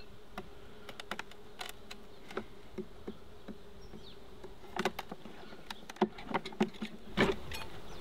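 Honey bees buzzing in a steady hum over an opened hive, with sharp clicks and scrapes as a steel hive tool pries the wooden frames apart, the loudest about five, six and seven seconds in.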